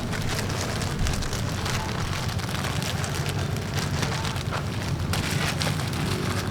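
Steady rain falling on a surface: many separate drop ticks over a continuous hiss, with a low rumble underneath.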